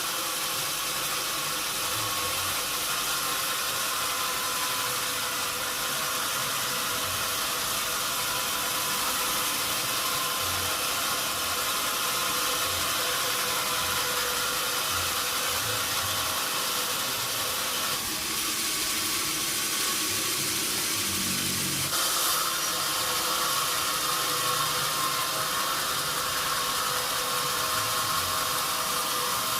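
Sawmill machinery running steadily: a continuous hiss with a steady machine hum in it. A little past halfway the hum dips for a few seconds, then returns.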